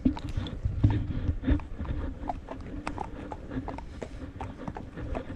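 Horse's hooves clip-clopping on the trail at a walk, with irregular knocks throughout and heavier thumps in the first second and a half.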